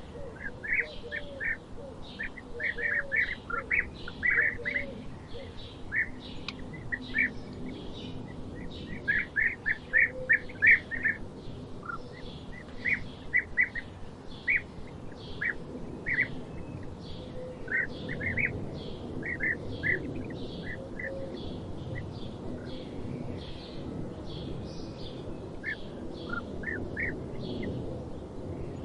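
Small birds chirping, short sharp notes in quick runs with gaps between, over a steady low background noise of the forest.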